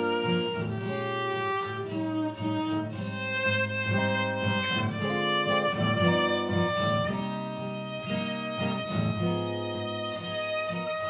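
A bowed string instrument plays a slow jazz-standard melody with long held notes, over a plucked string accompaniment of chords and bass notes.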